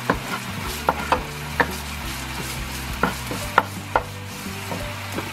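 Wooden spoon stirring orange zest in hot oil in a nonstick pan: irregular sharp taps and scrapes of the spoon against the pan, over a steady light sizzle of the frying zest.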